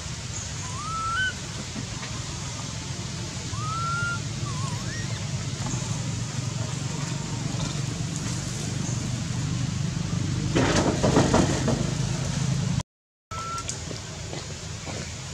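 A baby macaque's thin, rising whistle-like coo calls, once about a second in and again about four seconds in, over a steady low background hum. About ten seconds in comes a louder burst of rustling and crackling branches lasting a second or two.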